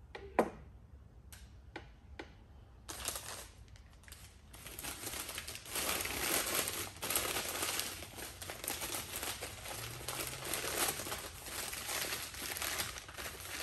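A few light clicks and knocks as a camera is handled, then from about three seconds in, continuous crinkling and rustling of paper as a camera is unwrapped from its crumpled paper packing.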